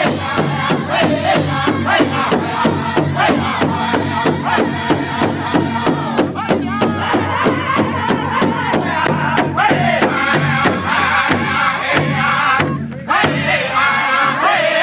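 Powwow drum group singing in chorus over a large hide-headed powwow drum struck in unison by several drummers, about four beats a second. The song breaks off for a moment near the end, then the voices come back in higher.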